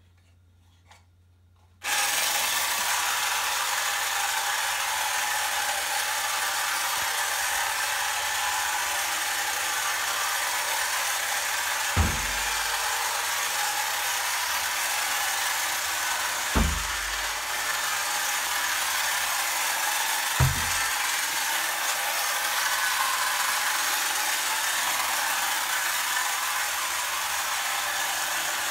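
Vintage battery-operated tin toy Volkswagen Beetle convertible by TN Nomura running across a wooden floor: its small motor and gears make a steady whirring rattle that starts about two seconds in. Three short thumps come a few seconds apart in the middle.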